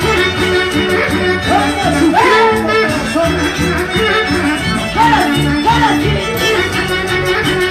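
Live Peruvian huayno band music played loud on stage, a violin carrying a gliding melody over a steady beat.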